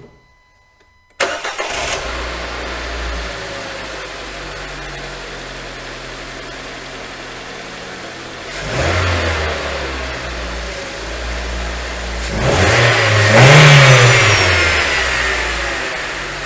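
Renault Duster's 1.6-litre 16-valve H4M four-cylinder petrol engine starting about a second in, on its first start after a water pump replacement, then idling. The engine is revved briefly about eight seconds in, then revved harder, rising and falling back to idle a few seconds before the end.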